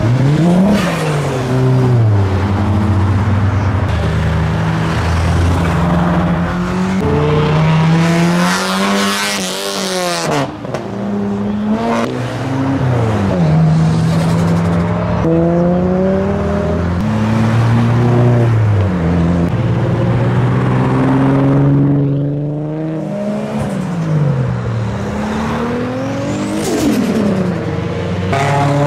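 A string of modified Japanese performance cars, Nissan Skylines among them, accelerating past one after another. Their engine notes climb as they rev up, drop at each gear change, and fall in pitch as each car goes by.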